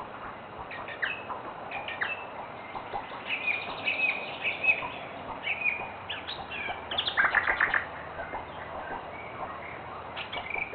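Birds calling: short chirps and down-slurred whistled notes, with a loud run of rapid repeated notes about seven seconds in.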